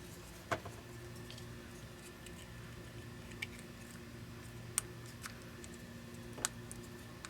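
A handful of sharp, scattered clicks and taps from hands working on the oxygen sensor's parts and wiring, the loudest about half a second in, over a faint steady hum.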